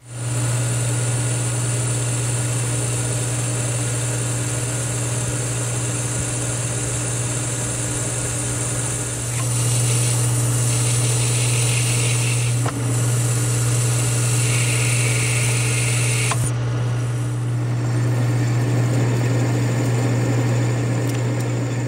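13x40 manual metal lathe running with a steady low hum while a high-speed steel tool takes finish cuts on a 304 stainless steel bar. A higher cutting sound comes and goes in the middle.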